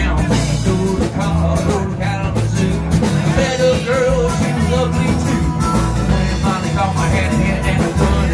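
Live band playing rock-and-roll with singing: guitars, bass and drums.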